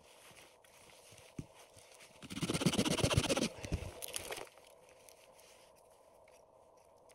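Close crunching and rustling about two seconds long, near the middle, from someone shifting in the snow and handling the split firewood stack. A faint steady hum runs underneath.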